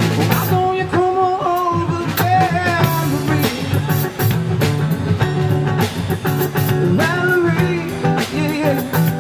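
Live rock band of electric guitar and drum kit playing a steady beat, with a voice singing over them.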